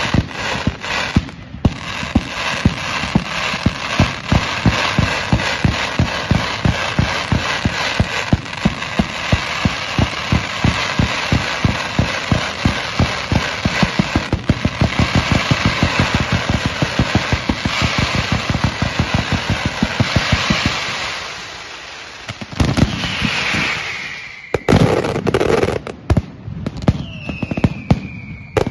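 Mascletà firecrackers going off in a rapid, steady barrage of loud bangs, several a second, over continuous crackling. After about twenty seconds the barrage thins into heavier single bangs, with a couple of whistles falling in pitch near the end.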